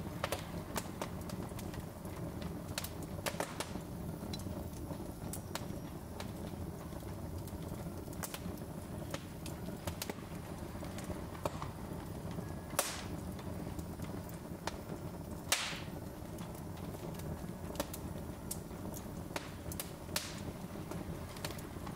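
Wood fire on a fireplace grate crackling: a steady low rush of flame with irregular sharp pops and snaps from the burning logs, two louder pops a little past halfway.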